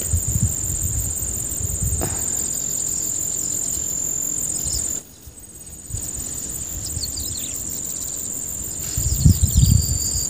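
Insects shrilling in a steady high drone with a fast pulsing trill above it, broken off for about a second midway. A few short chirps from a bird come in the second half, and low thumps sound near the end.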